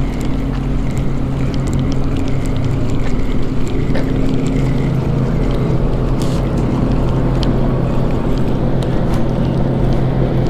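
Steady low drone of a boat motor running on the water, with wind noise on the microphone.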